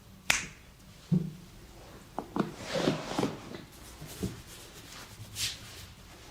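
Hand sounds from a barber's head and back massage: a sharp snap a moment in, a dull thump about a second in, then a quick run of clicks, pats and rubbing on skin, with a single click and a soft hiss near the end.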